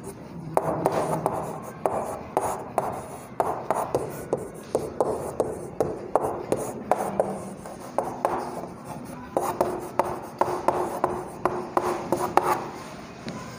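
Chalk writing on a chalkboard: a quick, uneven run of taps and scratches as letters are written, starting about half a second in and stopping about a second before the end.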